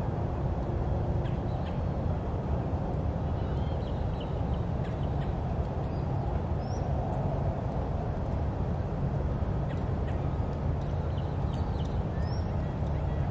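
Outdoor waterfront ambience: a steady low rumble with scattered short, faint bird calls and chirps throughout.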